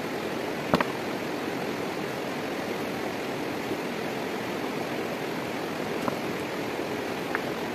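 Steady rushing of running water from a nearby stream, with a few sharp knocks of stones being set onto a stacked-stone fireplace wall: a quick double knock about a second in and lighter taps near the end.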